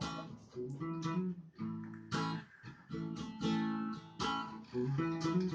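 Acoustic guitar strummed in chords, with a new stroke every half second or so.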